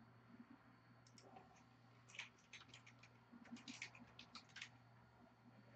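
Faint typing on a computer keyboard: a scattered run of quick taps over a few seconds, with a low steady hum underneath.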